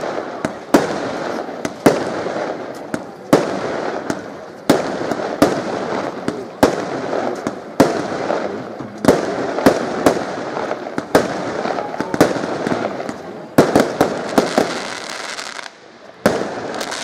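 Aerial fireworks shells bursting one after another, a sharp bang about once a second, each followed by crackling and a trailing echo.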